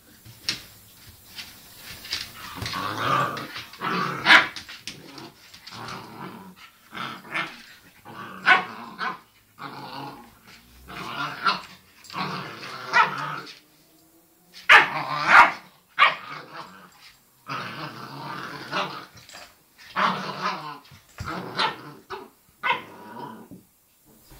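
A boxer and a golden retriever play-fighting, growling in repeated bursts broken by sharp barks, with short pauses between.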